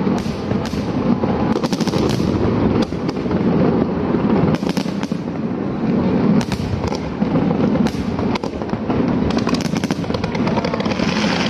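Aerial fireworks display: shells bursting in rapid succession, with many sharp bangs and crackles over a continuous rumble of explosions.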